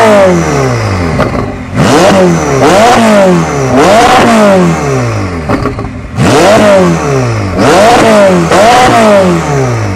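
Ferrari mid-engine V8 revved in quick blips while standing still, about six times, the pitch rising sharply and falling back toward idle after each one.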